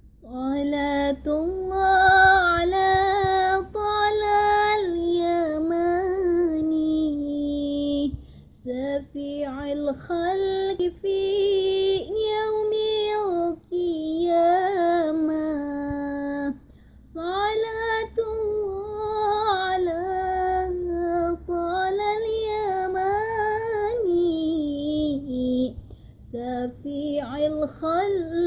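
A young woman singing an Arabic sholawat (Islamic devotional song) solo and unaccompanied, in long melodic phrases broken by short pauses for breath.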